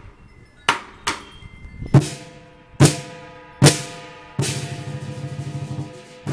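Chinese lion dance percussion, a big drum with cymbals. First about five spaced single strikes, each ringing on, then a fast drum roll under shimmering cymbals from about four seconds in, ending on one more strike.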